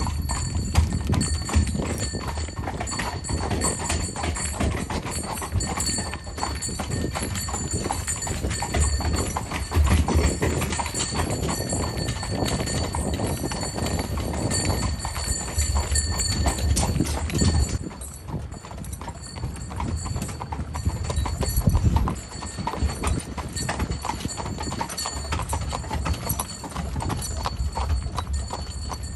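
A carriage horse's hooves clip-clopping at a steady walk, over a steady low rumble from the moving carriage. The sound is quieter for a few seconds about two-thirds of the way through.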